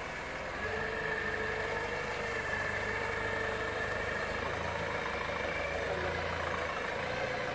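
Clark forklift's engine running under load, carrying a stack of wooden pallets. About half a second in it steps up to a steady, higher drone with a whine, and it eases back near the end.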